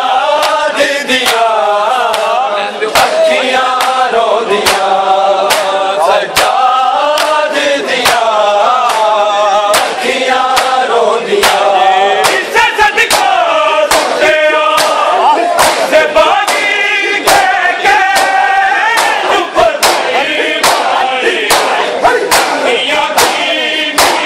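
Punjabi noha, a Shia lament, chanted by a male reciter with a group of men's voices, over sharp chest-beating slaps (matam) landing about once or twice a second.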